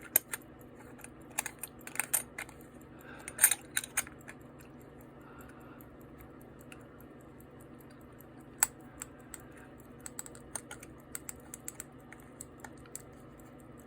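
Small sharp clicks and taps of a nickel-silver pocket watch's threaded case cover being handled and turned to catch its thread. They come in irregular clusters, a burst of them in the first few seconds and another run later on.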